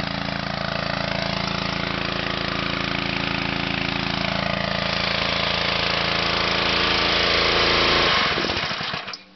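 Honda 11 HP single-cylinder pressure-washer engine running steadily with a strong hiss over it, then shut off about eight seconds in, winding down to a stop within a second.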